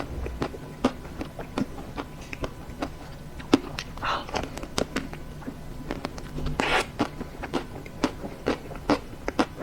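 Close-up chewing of a chocolate-coated ice cream bar, its crisp chocolate shell cracking in many quick, sharp crunches, with two longer, softer smears of sound about four and six and a half seconds in.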